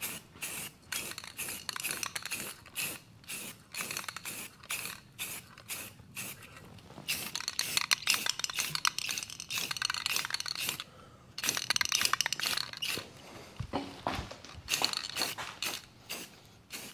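Aerosol spray paint can hissing as black paint is sprayed onto an engine block: short quick bursts over the first several seconds, then longer sprays from about seven seconds in.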